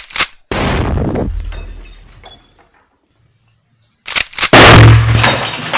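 Two loud blasts from a homemade cannon, about four seconds apart, each with short clicks just before it and a long fading rumble after, with glass soft-drink bottles shattering.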